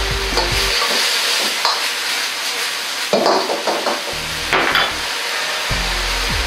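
Mapo eggplant sauce sizzling in a hot wok as starch water is stirred in to thicken it, with a ladle scraping around the wok a few times, loudest after about three seconds.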